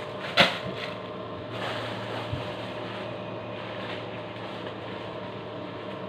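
Plastic bag and leafy greens being handled, with one sharp crinkle about half a second in and softer rustling after it, over a steady low hum.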